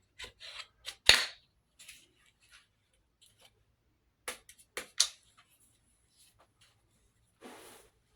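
Sharp metallic clicks and clacks from handling an AR-style pistol. The loudest is a single clack about a second in, a few more clicks come around four to five seconds in, and there is a short rustle near the end.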